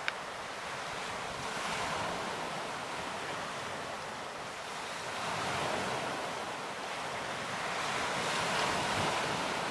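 Lake Superior waves washing onto the shore, the surf surging in three swells, with wind buffeting the microphone.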